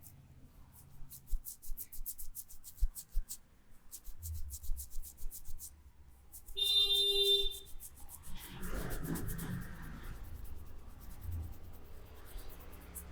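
Hands rubbing and patting on a head during a massage: a rapid, even run of brushing strokes, then a heavier rough rubbing. A short pitched tone sounds once, about seven seconds in.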